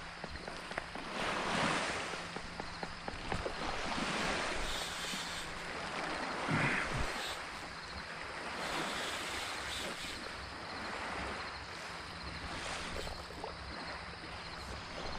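Small waves washing at the shoreline, the wash swelling and falling every couple of seconds, with wind on the microphone.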